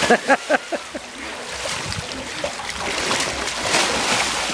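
Pool water splashing and churning as boys wrestle and thrash about in it: a big splash at the start, then steady sloshing and splashing.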